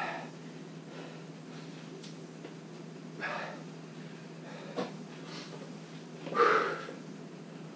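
A man catching his breath after a cardio workout: a few short, heavy breaths and exhales, the loudest a little over six seconds in, over a steady low hum.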